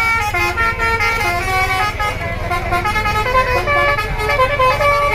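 Bus telolet horn, a multi-tone musical air horn, playing a quick tune of short steady notes that change pitch every fraction of a second, over the low rumble of a bus engine.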